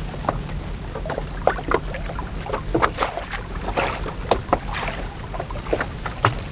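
Water slapping and splashing against the side of a small boat, with irregular short splashes from a big grunter held in the water alongside for release. A steady low rumble runs underneath.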